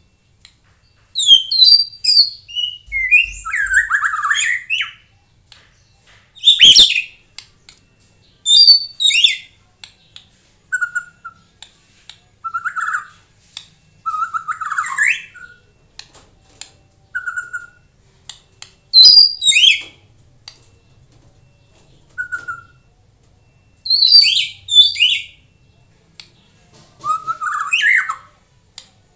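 White-rumped shama (murai batu) singing: loud separate phrases every few seconds, fast high chattering notes mixed with lower clear whistles, with a couple of sharp clicks among them.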